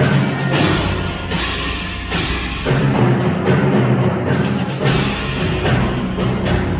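Student concert band playing, with sustained wind-instrument chords and timpani, and repeated sharp percussion strikes over the top.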